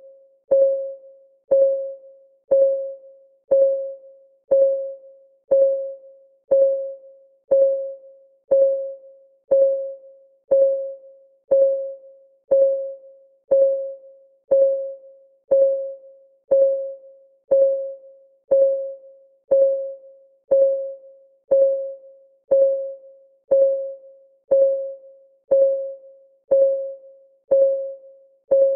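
Clock-ticking sound effect of a countdown timer: one short, pitched tick about every second, each dying away quickly, all alike and perfectly even.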